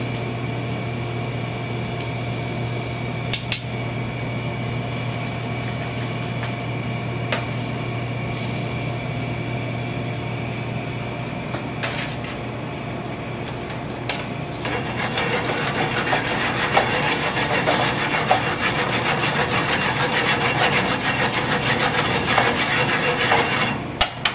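Kitchen equipment humming steadily with a few clinks of utensils on pans; a bit over halfway through, a crackling sizzle from the cooking pan of pasta and butter sauce builds and carries on until just before the end.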